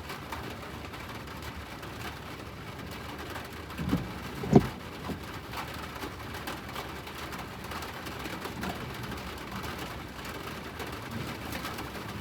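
Hydraulic excavator working: a steady machine noise with two loud knocks about four seconds in, the second louder, and a few fainter knocks after.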